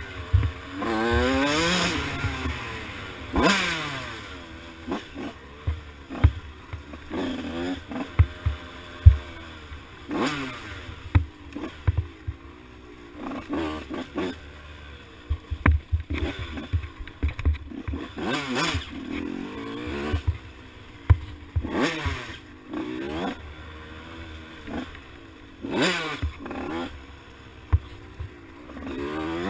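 A KTM 85 SX two-stroke single-cylinder dirt bike engine with a big bore kit, ridden hard off-road. It revs up and down again and again, the pitch climbing through each gear and dropping off. Frequent sharp knocks and clatter come from the bike over the rough trail.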